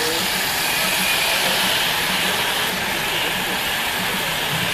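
HO-scale Märklin model steam locomotive and freight wagons running on three-rail track, heard as a steady hiss and rumble.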